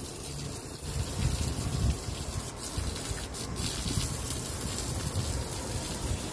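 Water gushing steadily as fresh mortar is washed off brickwork and the stonework below, with wind rumbling on the microphone.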